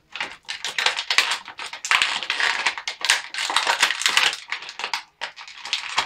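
Clear plastic toy packaging crinkling and crackling in the hands as an action figure is worked out of its bag, in a dense run of irregular crackles with a short pause about five seconds in.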